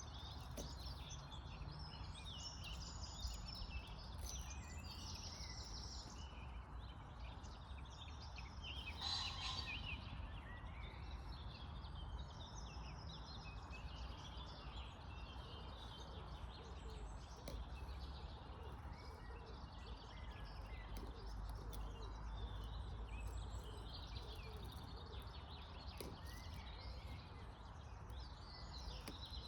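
Birds calling and chirping, many short high calls overlapping, with one louder call about nine seconds in, over a steady low rumble.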